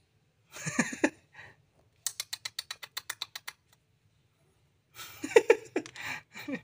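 Cat meowing, then a fast run of small clicks, about ten a second, lasting under two seconds, then more meowing near the end.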